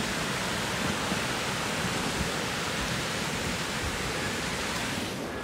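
Water pouring over a concrete dam spillway and rushing down the chute: a steady, dense rush of falling water that breaks off just before the end.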